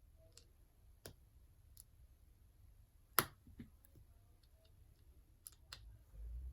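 Scattered small clicks and taps, with one sharper click about three seconds in: small tools and parts being handled against an iPad during reassembly.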